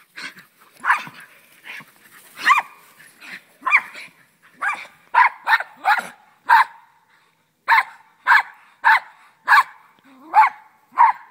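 Pyrenean Shepherd dog barking over and over in short, sharp, high barks. The barks come irregularly at first, then settle into a steady run of about two a second.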